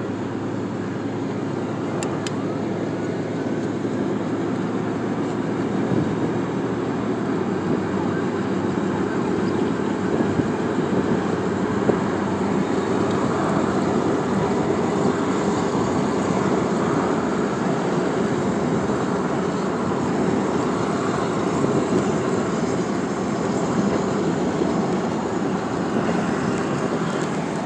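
Steady rush of wind and road noise from a car driving with its window down, heard from inside the cabin; it grows a little louder after about six seconds.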